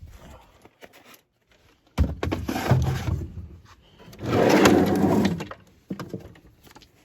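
Handling noises: a sudden knock about two seconds in, then two loud stretches of scraping and rustling, with scattered clicks.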